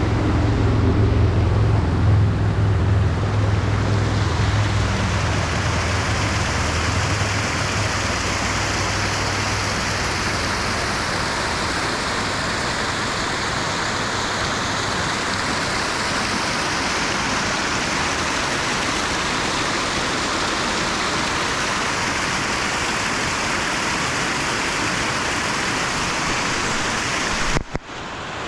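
Mountain stream rushing steadily over rocks. A low rumble lies under the water for the first several seconds and fades away, and the sound cuts out briefly near the end.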